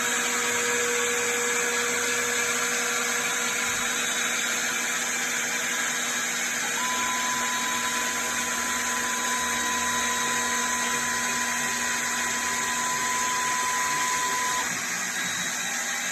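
CNC router running, its spindle motor giving a steady whine over a hiss. A second steady tone joins about seven seconds in and stops near fifteen seconds, when the sound drops slightly.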